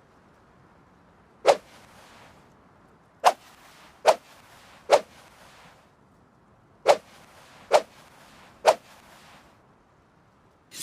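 Combat knife slashing through the air: seven quick swishes, one on its own, then three, then three. A sharp metallic clink comes right at the end.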